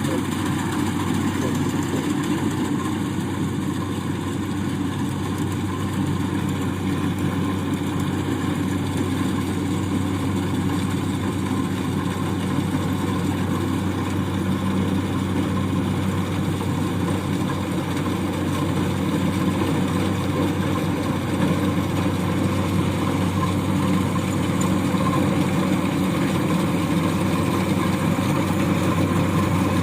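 Rice combine harvester engine running steadily as the machine harvests paddy, a continuous low drone that grows a little louder near the end.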